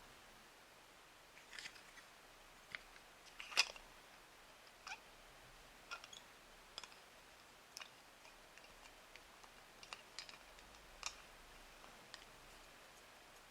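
Scattered soft clicks and taps, about a dozen, from handling a plastic Play-Doh playset; the loudest is a sharp click a little past three and a half seconds in.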